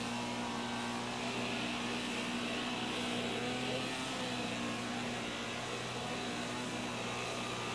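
An engine running steadily: a constant low hum with an even hiss above it.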